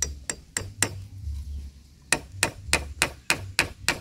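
Hammer driving a nail into scrap wood, each blow with a short metallic ring. A few light taps start the nail, then after a pause of about a second comes a steady run of harder blows, about three a second.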